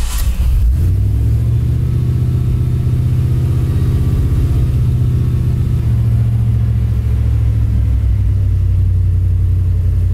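Chevy truck's V8 running on a newly installed Holley Sniper throttle-body EFI, heard from inside the cab. It has just caught and flares briefly at the start, then settles into a steady fast idle of about 1,300 rpm as the EFI self-learns, with the static timing freshly set at 15 degrees.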